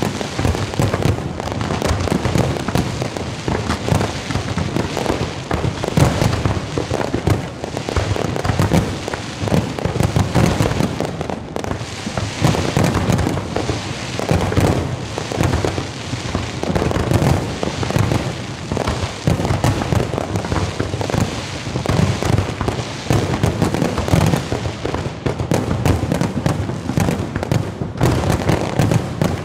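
Fireworks display: many aerial shells bursting in a dense, unbroken barrage of bangs.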